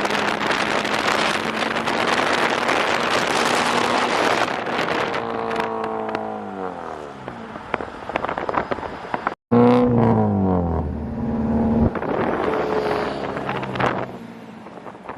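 1991 Mazda Miata's 1.6-litre four-cylinder running at high revs on rollers through a downpipe into an ISR blast pipe, then the revs falling away. After a brief break just past halfway, the engine blips again and winds down to a lower, quieter run near the end.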